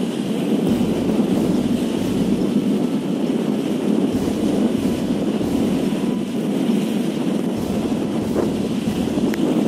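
Steady wind noise buffeting the microphone, mixed with choppy reservoir waves washing and breaking against a stone embankment.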